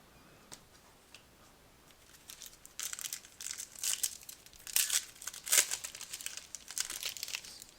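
Foil wrapper of a 2014 Prizm football card pack being torn open and crumpled: crinkly rustling that starts about two seconds in and comes in a run of short bursts.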